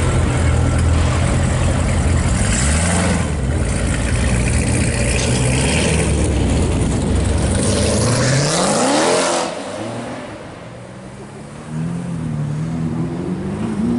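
Chevrolet Corvette C7's V8 rumbling loudly at low revs as it pulls away, then revving up in a rising sweep about two-thirds of the way through before dropping off. Another car's engine follows more quietly near the end, its pitch rising and falling.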